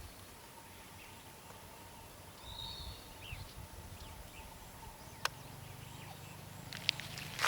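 Quiet open-air field ambience with a low steady rumble. A short high chirp sounds about two and a half seconds in, and a single sharp click comes a little past the middle.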